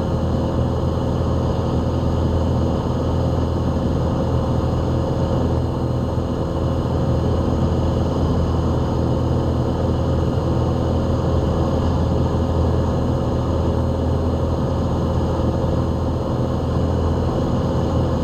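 Van's RV-7 single-engine piston airplane's engine and propeller in level cruise, a steady drone heard from inside the cockpit.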